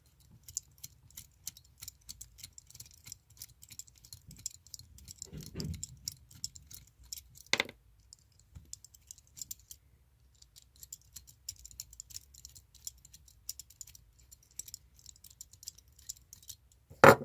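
Small screwdriver working the coil screws out of a tattoo machine: many rapid, faint metallic clicks and ticks, with one sharper click about seven and a half seconds in and a loud knock at the very end.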